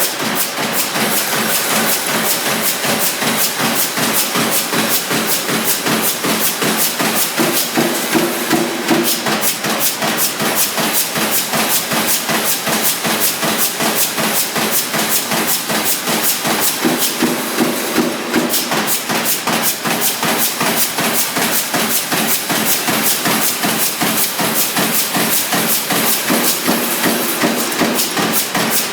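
Sheet-fed press line stamping sheet metal: a press ram striking in a fast, even rhythm of several sharp metallic strokes a second, over a steady hiss of machinery.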